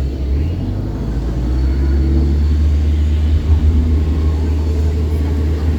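Tour boat's motor running with a steady low rumble.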